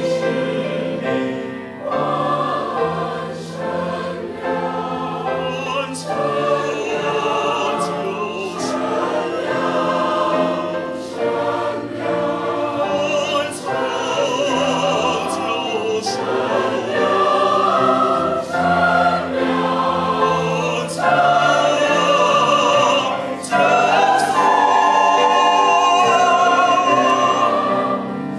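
Large mixed choir of men and women singing a slow cantata passage in Chinese, many voices in parts, swelling louder over the second half.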